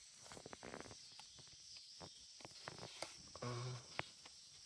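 Faint crinkling and crackling of a vinyl sticker's paper backing being peeled off by hand, a run of small irregular ticks with a sharper click about four seconds in.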